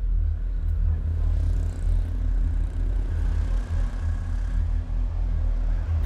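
Road traffic on a busy street: a steady, deep rumble of passing vehicles that starts suddenly.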